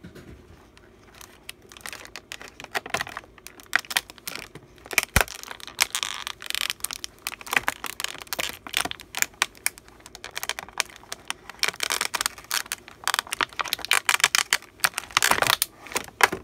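Thin clear plastic blister tray of a Twozies doll pack crinkling and crackling under the hands as dolls are worked out of it, in quick irregular bursts that grow busier around the middle and again near the end.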